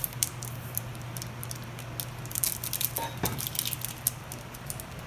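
Paper card and plastic wrapping rustling and crackling as they are handled, in quick irregular ticks that thicken about two seconds in, with a single sharper knock about three seconds in. A steady low hum runs underneath.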